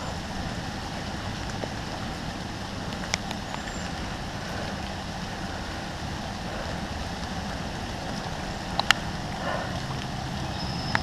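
Steady background hum of distant road traffic, with a couple of faint short clicks about three seconds in and again near nine seconds.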